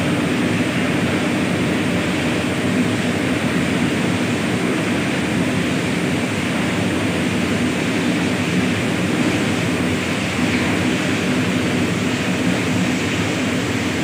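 Steady industrial noise of a lead-smelting rotary furnace plant at work: the furnace burner firing and the fume-extraction fans running, a constant low hum under a broad rushing sound.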